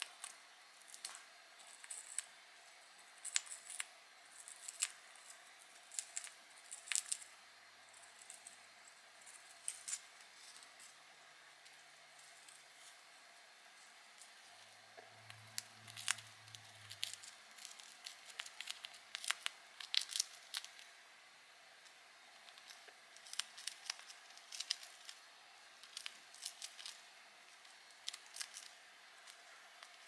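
Budgie chewing and shredding a balsa wood chip with her beak: irregular crisp snips and crackles of splintering wood fibres, coming in quick clusters with short pauses between them.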